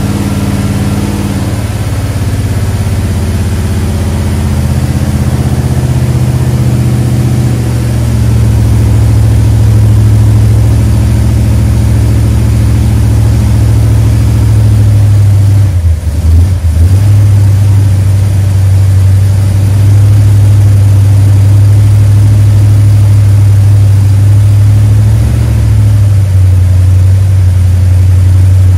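Freshly assembled 440 big-block V8 with a tunnel ram and two carburetors, running steadily at a fast idle. It gets louder about eight seconds in and briefly dips around sixteen seconds.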